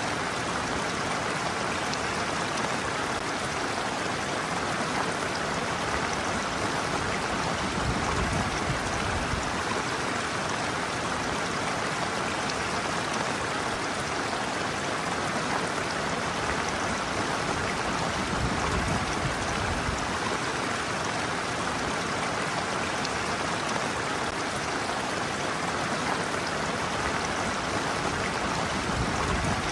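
Shallow stream water running steadily over a slope and around a person's feet, an even rushing and burbling.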